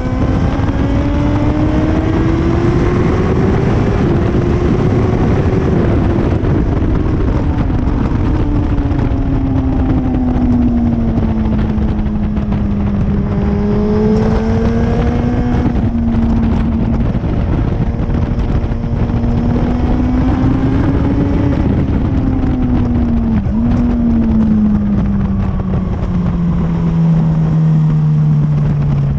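Motorcycle engine at speed on a race track, its note repeatedly rising and falling with the throttle and gear changes, with a sharp dip about three-quarters of the way through. Heavy wind rush on the onboard microphone runs underneath.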